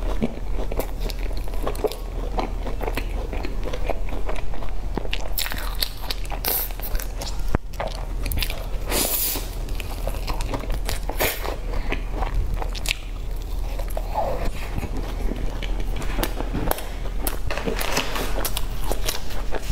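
Close-miked eating: a crumbly cream-filled pastry bun being bitten and chewed, with many short crunches and crackles over a low steady hum.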